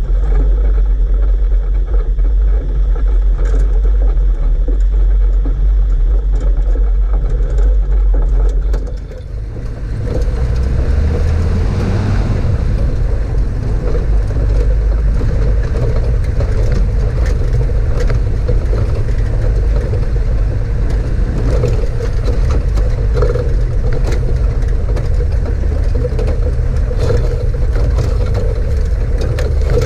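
A Toyota 4WD driving a rough dirt track, its engine running with heavy low rumble from the tyres on the track and wind. About nine seconds in, the sound dips briefly and then the engine note rises.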